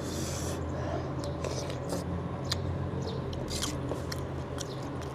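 Close-up eating of kuay chap noodle soup: a brief slurp right at the start, then chewing with scattered wet smacks and clicks.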